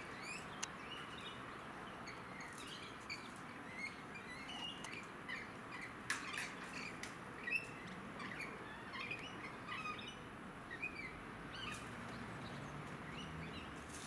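Rainbow lorikeets chattering in many short, quick chirps and twitters, with a few sharp clicks among them, the loudest about midway.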